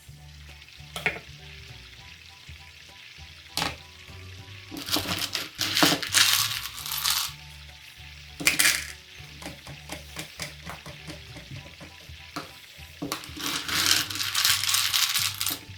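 Frying sizzle sound effect for pretend cooking, coming in three bursts, over soft background music, with two short knocks in the first few seconds.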